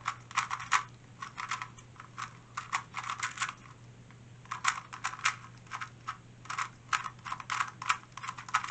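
Plastic 2x2 GAN speedcube being turned rapidly during a timed solve: fast runs of sharp clicking turns, with a brief pause about four seconds in. A faint steady low hum underneath.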